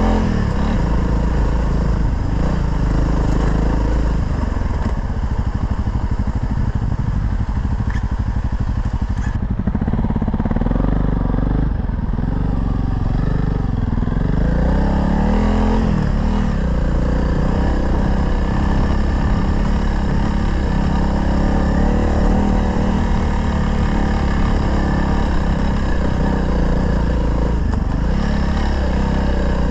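A single-cylinder dual-sport motorcycle engine running under way, its pitch rising and falling a few times with the throttle.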